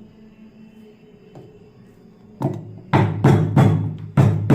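Lump of jaggery being pounded to crush it: after a quiet start, a quick run of about six or seven knocking strikes, roughly three a second, starting a little past halfway.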